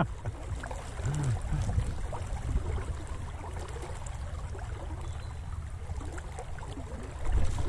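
Swollen spate river rushing and lapping around a wading angler, a steady low rumble of moving water.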